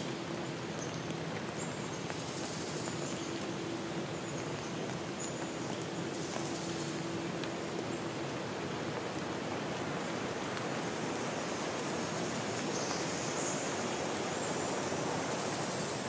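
Steady, even rushing noise of a woodland nature-sound ambience, with a few brief, faint high-pitched tones over it.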